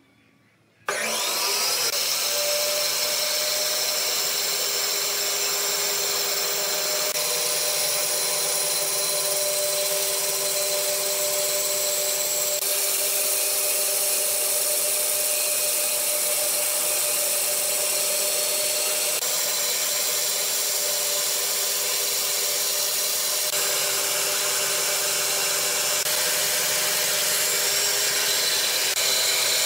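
Band saw starting up about a second in and then running steadily, its blade cutting through a thick wooden block.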